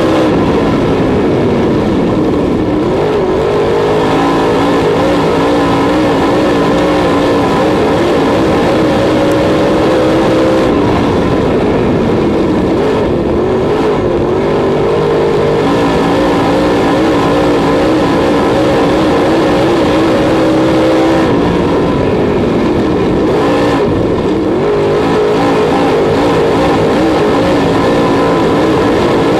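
Dirt late model race car's V8 engine at racing speed, heard from inside the cockpit. The engine holds a high, steady pitch, then drops and climbs back again three times, once each lap, as the throttle comes off for the turns and back on out of them.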